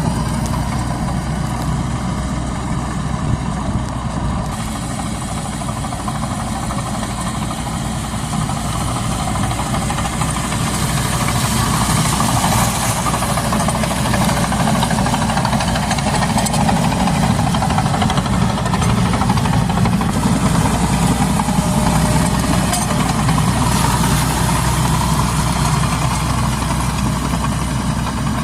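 Bulldozer's diesel engine running steadily, with a rushing noise that swells and fades twice over it.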